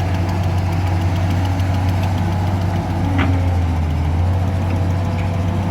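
An engine running steadily with a deep, even hum, its note unchanging. About three seconds in there is one brief higher-pitched squeak or chirp.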